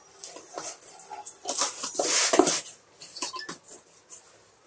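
Cardboard box being opened: a box cutter slitting the packing tape and the cardboard flaps scraping and rustling as they are pulled open. The sounds come in irregular bursts and are loudest around the middle.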